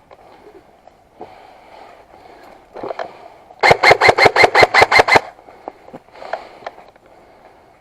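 Airsoft rifle firing a rapid string of about eleven shots, roughly seven a second, for a second and a half near the middle, between quieter rustling of movement.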